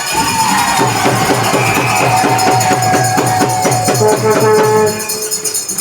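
Music with a steady, fast beat played over an arena's PA, fading out near the end.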